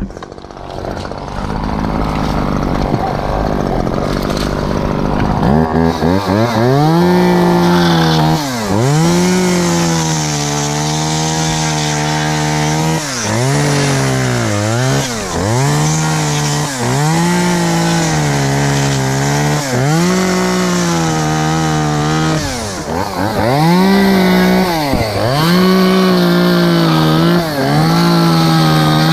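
Husqvarna 338 XPT top-handle chainsaw, a small two-stroke. About six seconds in it revs up and runs at high speed, dropping back and revving up again every couple of seconds as the throttle is released and squeezed between cuts.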